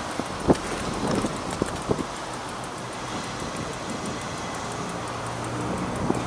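Town street ambience: road traffic going by and wind on the microphone, with a few sharp knocks in the first two seconds, the loudest about half a second in. A low steady hum comes in near the end.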